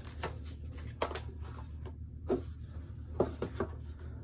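Light taps and clicks of board-game pieces being handled and set into their box, about six small knocks spread out with three close together near the end, over a steady low hum.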